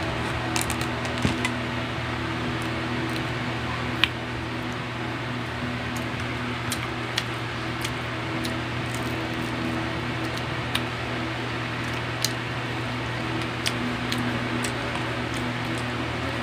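Steady mechanical hum, with scattered light clicks and taps of eating by hand and with a spoon from a plate of rice; the sharpest click comes about four seconds in.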